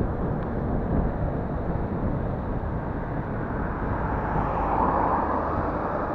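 Steady rush of wind over the microphone and tyre noise from a bicycle riding fast on an asphalt road, swelling a little about four to five seconds in.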